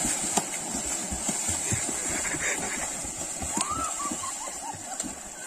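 Water splashing and churning as children swim and kick through a pond, an irregular patter of small splashes over a steady high hiss.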